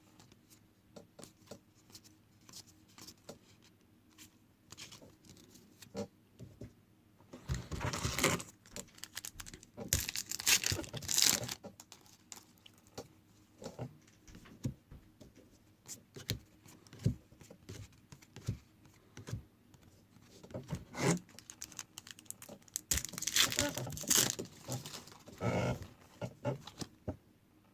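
Trading-card pack wrappers being torn open and crinkled, with cards being handled and flicked through as a run of small clicks. Louder bouts of tearing and crinkling come about eight and eleven seconds in, and again a little past twenty-three seconds.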